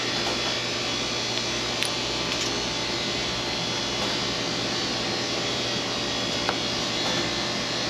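Steady mechanical hum and hiss of a fan running, with a couple of faint light ticks.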